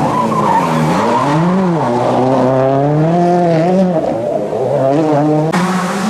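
WRC 2 rally car engine revving hard, its pitch dropping and rising several times with gear changes and throttle. The sound changes abruptly about five and a half seconds in.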